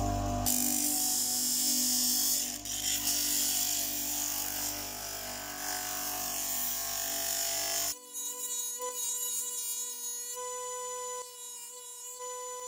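Small benchtop disc sander running while a thin strip of wood is pressed against its abrasive disc: a steady, loud hiss of sanding over the motor's hum. About eight seconds in the sanding sound cuts off abruptly and gives way to music with held tones.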